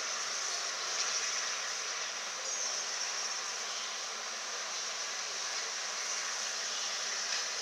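Rebuilt Bulleid Merchant Navy class Pacific steam locomotive 35028 Clan Line rolling slowly past, heard as a steady hiss with no distinct exhaust beats.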